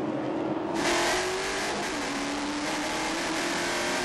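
V8 race car engine at high revs. From about a second in it is heard from on board car 400, a Holden Commodore, loud and steady with a slight dip and recovery in pitch as it runs down the straight.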